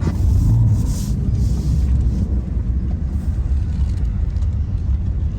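Chevy Express camper van driving: steady low engine and road rumble.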